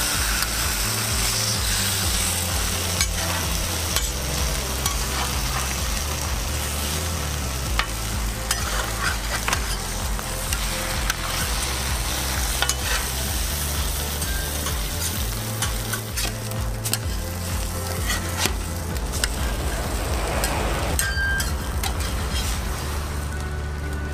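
Food frying and sizzling in a pan while being stirred, with a utensil clicking and scraping against the pan now and then.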